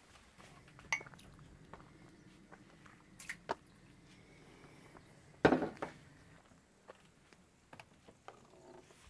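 A few scattered knocks and clinks from things being handled, like dishes or utensils, in a small room; the loudest comes about five and a half seconds in.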